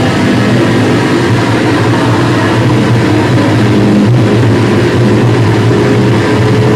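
Loud, unbroken wall of heavily distorted electric guitar noise through an amplifier and effects pedals: a steady low drone under a harsh hiss.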